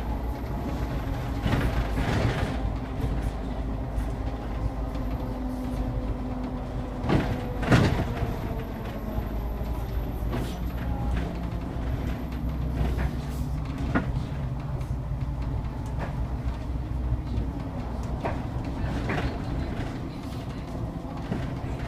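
Inside a city bus under way: a steady low rumble with a faint humming drone that shifts in pitch as the bus changes speed. Occasional knocks and rattles from the cabin, the loudest about seven seconds in.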